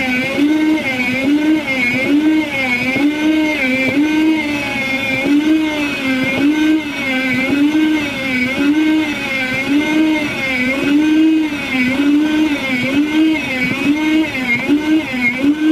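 Nesco electric food slicer running as it slices smoked beef: a steady motor hum whose pitch wavers up and down in a regular rhythm, about once every 0.7 seconds.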